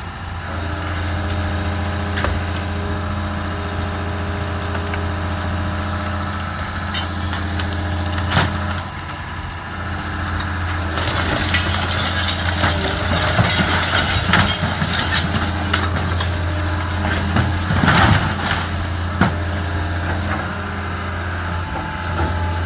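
A heavy machine's engine running steadily while the wooden house is torn down, with timber cracking and debris crashing. The crashing picks up about halfway through, with the loudest crash a little before the end.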